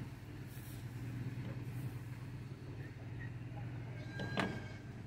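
A steady low mechanical hum, with one sharp click a little after four seconds in.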